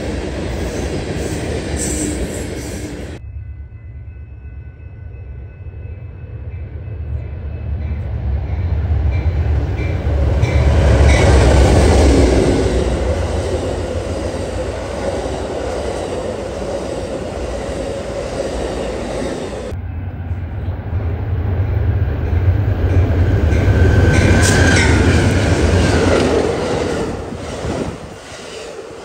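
Amtrak passenger train, led by a diesel locomotive, approaching and passing; the low engine rumble builds to a peak, then the double-deck cars roll by with clickety-clack wheel noise and a brief high wheel squeal. The sound jumps abruptly twice.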